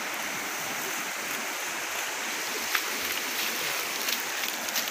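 Steady rushing of flowing floodwater, with a few faint ticks.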